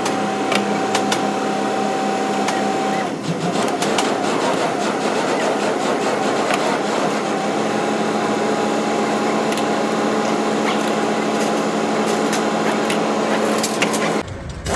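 A small motor-driven workshop tool running steadily with a whine and scattered clicks, dipping briefly about three seconds in and cutting off sharply near the end.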